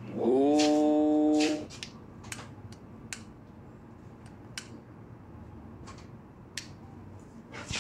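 One drawn-out spoken syllable, a single vowel held for about a second and a half, as a letter with its vowel is sounded out. After that, quiet room tone with a low hum and a few faint scattered clicks.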